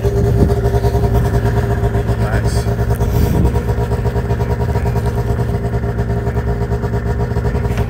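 Arctic Cat Mountain Cat snowmobile's two-stroke engine idling steadily.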